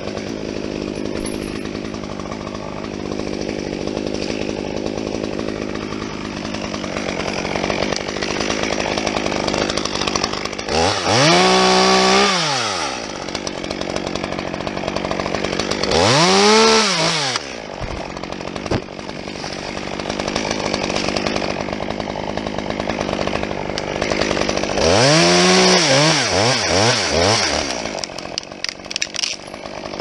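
Chainsaw running at idle, revved up to full speed three times. Each rev lasts one to two seconds, with the pitch rising and then falling back. The last rev wavers up and down for about two seconds.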